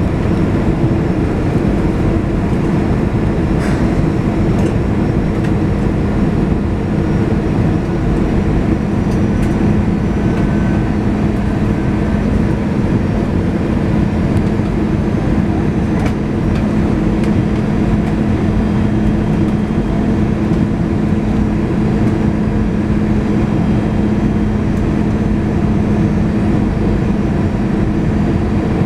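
Airbus A320 cabin noise while descending on approach: the jet engines and the rushing air make a steady, unbroken drone with a constant low hum.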